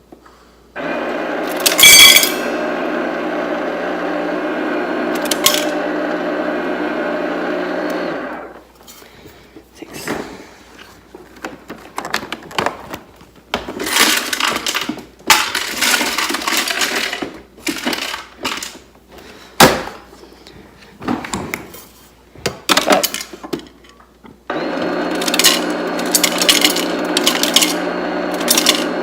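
Refrigerator door dispenser running with a steady hum as it fills a cup, with a sharp crack of ice about two seconds in. Scattered clinks and knocks follow, then the dispenser hum starts again for the last few seconds.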